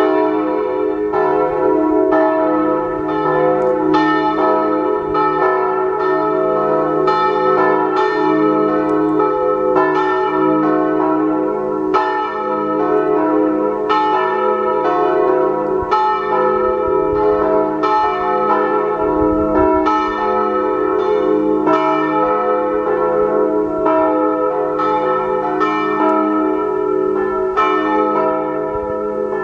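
Full-swing church bells cast by the Pruneri foundry of Grosio, pealing together, with overlapping strikes about twice a second over a steady ringing hum.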